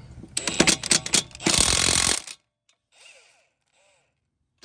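A socket ratchet clicking as the lug nuts are turned off a car wheel. The clicks run faster into a dense rattle, then stop just past two seconds in.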